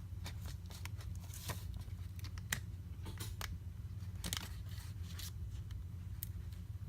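Scattered small clicks and scrapes of tools and fingers working at the edge of a cracked iPad Pro screen to free it, the sharpest click about two and a half seconds in, over a steady low hum.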